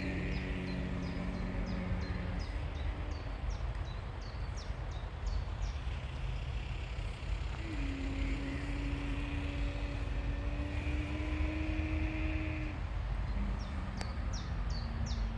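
Camel moaning in long, drawn-out, even-pitched calls: one fading out about two seconds in, one lasting about five seconds in the middle, and a third starting near the end. Under it is a steady low rumble, with a small bird chirping quickly at the start and near the end.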